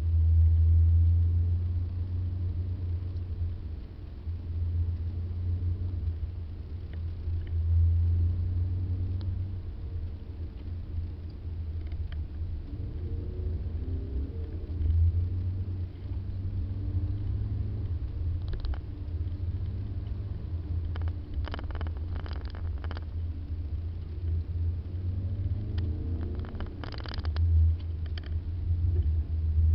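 Low, steady rumble of a car being driven, heard from inside the cabin through a dashcam's built-in microphone: the drone swells and eases with the road. A few short clicks or rattles come in the second half.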